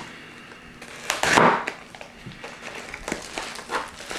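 Shipping packaging being handled: a loud rustling crinkle about a second in, then light crackles and taps.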